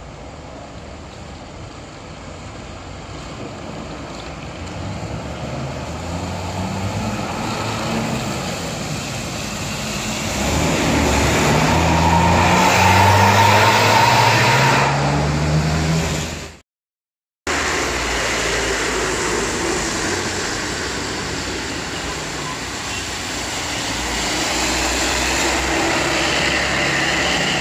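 An intercity coach's diesel engine pulls away on a wet road, rising in pitch several times as it accelerates through the gears. The sound cuts off sharply, then another coach passes close by with steady engine and tyre noise.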